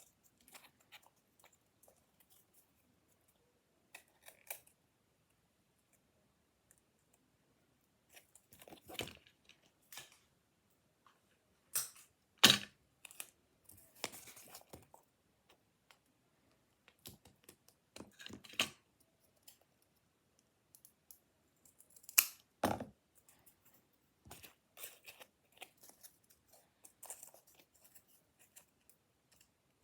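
Scissors cutting paper in short, scattered snips, with paper being handled between cuts. The loudest snips come about twelve and twenty-two seconds in.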